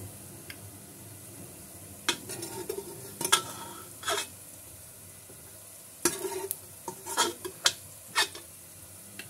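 Steel spoon clinking and scraping against the inside of a steel pressure cooker as cooked mutton pieces are lifted out of the broth, in a string of sharp metallic knocks. A steady faint sizzle of onions frying runs underneath.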